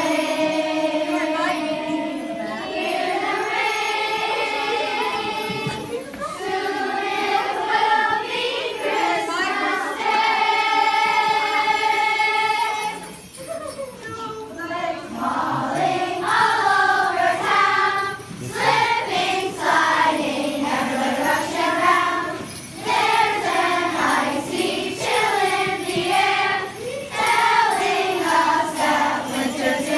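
A group of children singing a Christmas carol together, holding long notes, with jingle bells shaking along.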